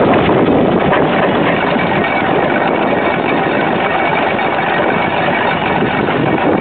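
A heavy engine running steadily.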